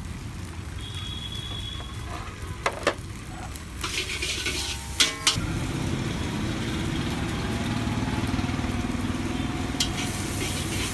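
Chicken pieces sizzling in hot oil while a large perforated iron strainer scoops them out of the wok. A louder sizzle comes about four seconds in, and the metal strainer gives a few sharp clinks against the wok, one about five seconds in that rings briefly. A steady low hum runs underneath.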